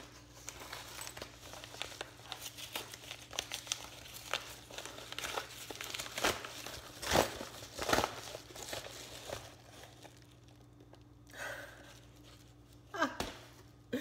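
Brown paper mailer envelope being torn open and handled, a run of crinkling and tearing, with the loudest crinkles about seven and eight seconds in before it goes quieter near the end.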